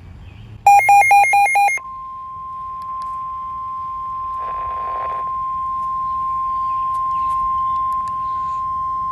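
EAS/SAME digital header burst, a harsh, rapidly warbling data tone about a second long, followed by the steady 1050 Hz NOAA Weather Radio warning alarm tone that holds unbroken. Together they signal that a new warning is about to be broadcast.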